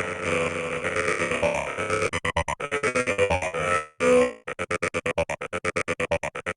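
Minimal techno playing in a DJ set: synthesizer music chopped into a rapid stutter of about eight pulses a second, smoothing out briefly in the middle, with a short full cut-out about four seconds in.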